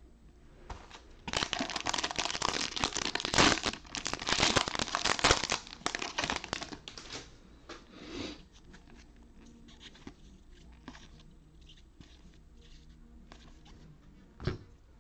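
A trading card pack's wrapper being torn open and crumpled: a dense run of crackling lasting about six seconds, then quieter rustling as the cards are handled, and a single sharp tap near the end.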